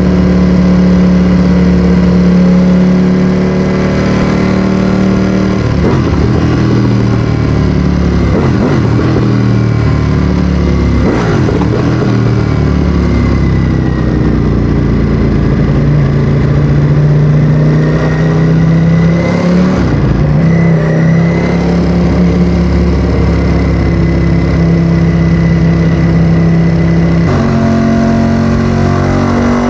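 Ducati Streetfighter V4S's 1103 cc Desmosedici Stradale V4 engine through an Akrapovic exhaust, running loud at steady revs, with the revs swinging up and down several times in the middle and stepping up again near the end.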